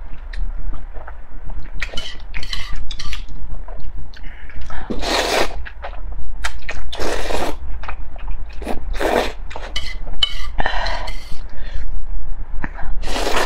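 A person slurping spicy instant noodles in about five long, noisy pulls, with wet chewing and short clicks of chopsticks in between.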